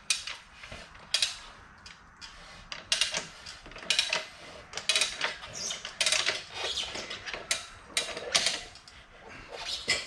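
Raboconda manual tire changer working a motorcycle tire bead over its duck head, with uneven metal-and-rubber scraping, clicks and clacks throughout.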